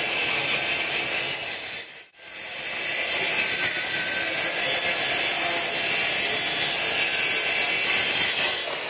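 Festool TS 55 REQ plunge track saw running and rip-cutting through a wooden sheet panel along its guide rail. The sound drops out briefly about two seconds in, then the cut carries on. Near the end the motor begins to wind down in falling pitch.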